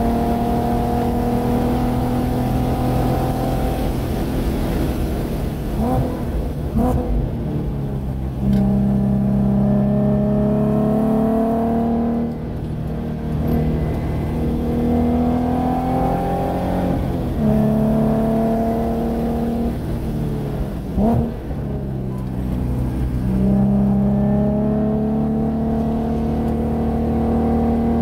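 2014 Nissan 370Z's 3.7-litre V6 heard from inside the cabin, driven hard on track: engine pitch climbs under full throttle and drops several times as the car brakes and shifts for corners, with short sharp blips during the downshifts.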